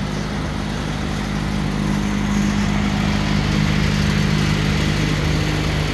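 Steady mechanical drone: a low hum over a continuous rushing noise, with no change in pace.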